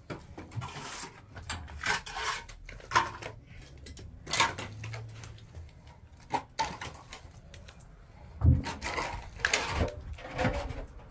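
Irregular knocks and clatters of objects being handled, with a heavier thump about eight and a half seconds in.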